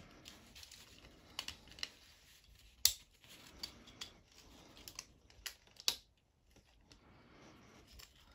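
Faint plastic clicks and rattles as the parts of a Transformers War for Cybertron Kingdom Warpath action figure are folded and pressed into place while it is transformed into its tank mode. The sharpest clicks come about three and six seconds in.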